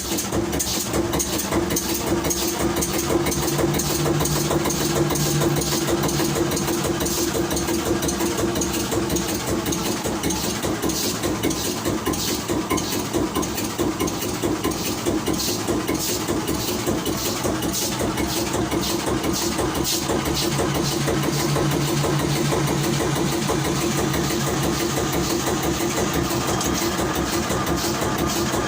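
Callesen marine diesel engine running steadily at low speed, its firing pulses coming fast and even.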